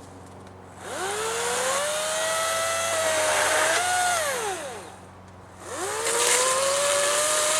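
Battery-powered electric chainsaw revved twice. The motor whine rises as the trigger is squeezed, holds with a slight sag in pitch, then winds down, and spins up again a second later.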